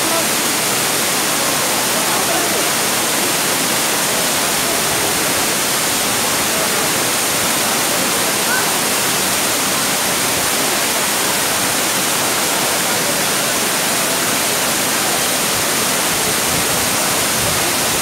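A large waterfall cascading over stepped rock ledges: a loud, steady rush of falling water that does not change.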